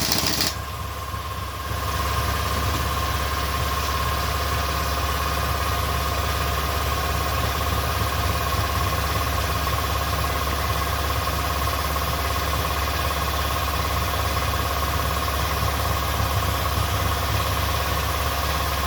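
A motor running steadily, with a constant low hum and a steady whine that do not change. There is a short loud hiss right at the start.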